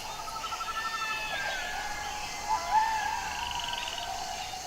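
Several jackals howling and yipping together: overlapping high, wavering wails that rise and fall, with a couple of fast rattling trills.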